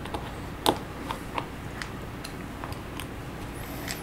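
Small plastic Lego bricks clicking and tapping as they are snapped together and picked from a pile on a table: scattered sharp clicks, the loudest about two-thirds of a second in.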